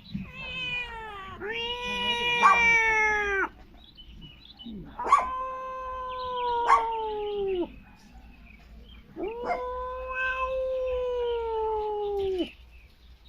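Four long drawn-out pet yowls, each one to three seconds long, held at a steady pitch and dropping off at the end, with short gaps between them. Two or three sharp clicks fall during the calls.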